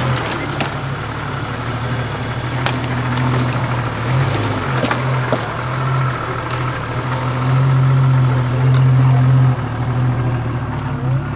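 Jeep Wrangler YJ engine running at crawling speed as the Jeep climbs over rocks and logs, louder for about two seconds near the end as the throttle comes up. A few sharp clicks in the first few seconds.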